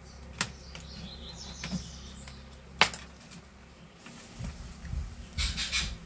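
Handling noise from a hair dryer being worked on by hand: a few sharp plastic clicks and light rattles as a thin wire is pulled and pushed into place in the open handle, the loudest click a little under three seconds in, then a brief rhythmic rustling scrape near the end.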